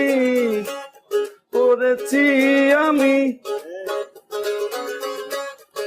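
Bengali song: a singer holds a long note that bends down and ends about half a second in, then sings more wavering, bending phrases over a rhythmic instrumental backing.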